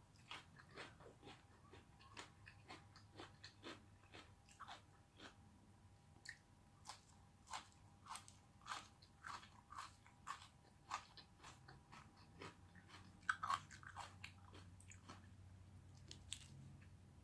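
A person chewing and biting food close to the microphone: soft, irregular crunches and wet mouth clicks about one or two a second, with the loudest pair a little after the middle.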